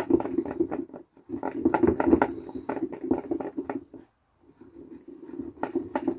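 Carp boilies, sticky with liquid food and powder, rolling and rattling around a plastic bucket as it is swirled, with a rapid clicking over a rumble. It comes in three bursts, with short pauses about a second in and about four seconds in.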